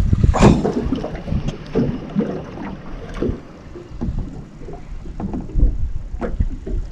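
Wind buffeting the microphone and water lapping against a fishing boat's hull, with scattered light knocks.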